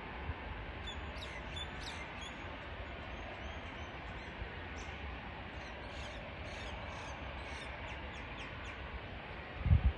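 Small birds chirping and twittering in quick repeated short calls over a steady low rumble. Near the end come a few loud low thumps.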